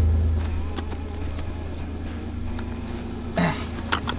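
Utility vehicle engine idling with a low hum that fades over the first half second and then runs on softly. A brief rasping sound comes about three and a half seconds in, followed by a few light knocks near the end.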